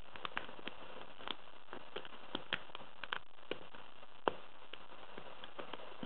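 Lock pick and tension wrench working the pins inside a small brass padlock: light, irregular clicks and scrapes with one sharper click about four seconds in, over a steady hiss.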